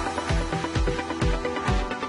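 Electronic background music with a steady, fast kick-drum beat under sustained synth tones.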